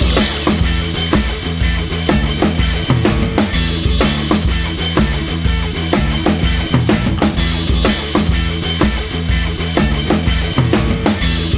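Background music: an upbeat track with a steady drum-kit beat and a bass line.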